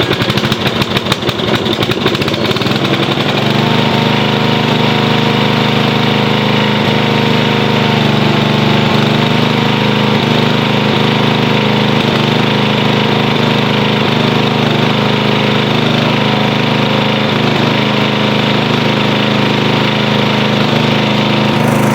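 An 11-horsepower lawn tractor engine catching on a restart, firing unevenly for the first couple of seconds, then settling into a steady run.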